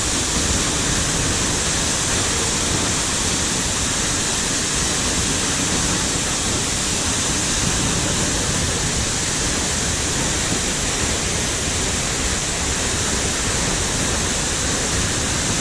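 Waterfall, a tall one about 25 m high, crashing steadily and loudly into its plunge pool. A constant, even roar of falling water with no change in level.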